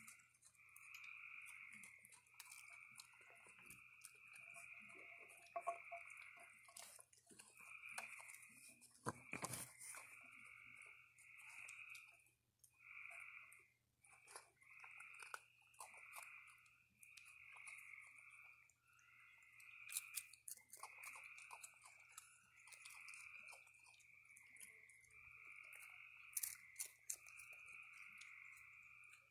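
Raccoons crunching and chewing dry cereal and cookies, with a few sharper crunches, over a steady chorus of frogs calling in short repeated trills about once a second.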